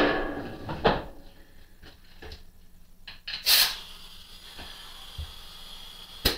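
Metallic clatter from handling the sheet-metal electrical box on the back of a metal lathe's headstock and its cover: a ringing rattle at the start, a knock about a second in, a short hissing rush partway through, and a sharp click near the end.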